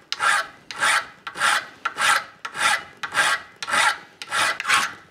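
Hand file strokes on a small piece of angle iron clamped in a bench vise: a flat file squaring off the outside teeth of a toothed gripping plate. The strokes are even and steady, a little under two a second.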